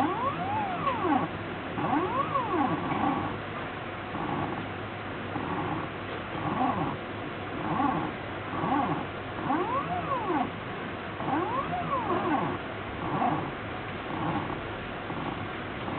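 ShapeOko desktop CNC mill's stepper motors whining as the machine moves: the pitch swoops up and then down with each move, alternating with short stretches of steady tone, over and over.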